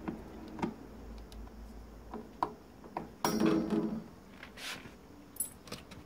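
Scattered light metallic clinks and taps from work on a refrigerator's metal back as it is unscrewed for scrapping, with a louder clattering rattle about three seconds in.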